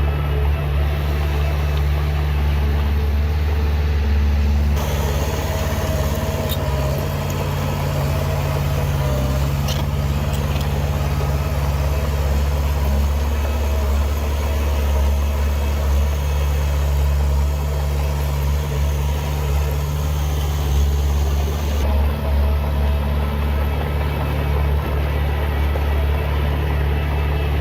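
Heavy diesel engine of earthmoving machinery running at a steady speed, a constant low hum. The higher hiss above it changes suddenly about five seconds in and again near the end.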